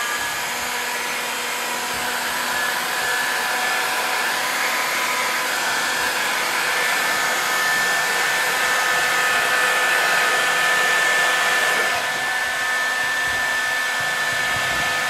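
Bosch heat gun running steadily: an even rush of blown air with a constant fan whine. It is heating duct tape so the adhesive softens and bonds.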